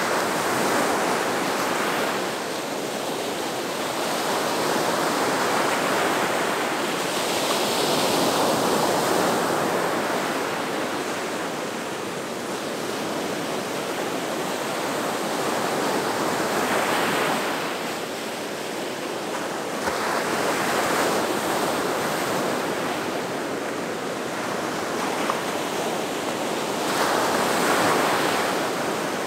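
Ocean surf breaking on the shore: a continuous wash of waves that swells louder every several seconds as each wave breaks, then falls back.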